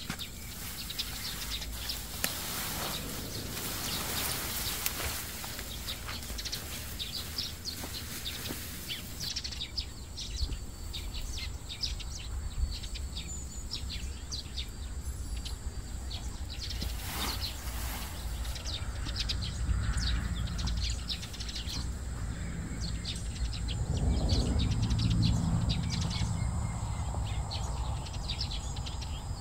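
Leafy perilla stalks rustling and crackling as they are cut and gathered by hand, with a louder rustle about three-quarters of the way through, and birds chirping.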